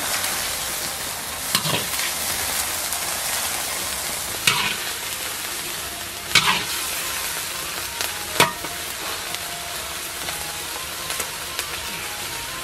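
Hot chili-oil sauce sizzling and hissing as it is ladled from a wok over a giant salamander in a foil tray. A metal ladle scrapes and knocks against the wok four times.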